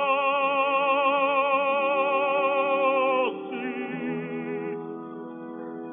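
Operatic tenor holding a long, loud note with wide vibrato that breaks off about three seconds in, then a shorter sung note on 'tornassi' over instrumental accompaniment, which carries on alone near the end.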